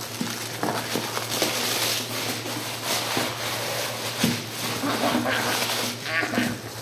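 Paper packaging rustling as a shoe box is unwrapped, irregular and uneven, with a couple of light knocks.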